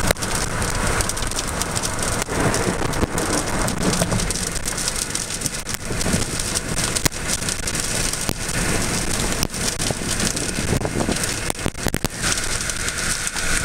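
Steady rain from a tornado-producing thunderstorm: a continuous rushing noise broken by many sharp taps of drops striking close by.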